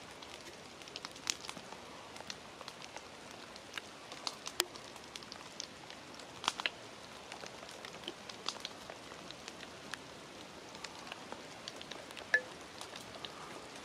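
Light rain after a storm: scattered raindrops ticking irregularly over a faint steady hiss.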